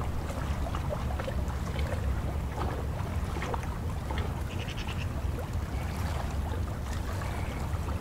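Wind rumbling on the microphone over choppy estuary water, with small waves lapping and splashing at the shore. A short, quick run of high calls, most likely a bird, comes about halfway through.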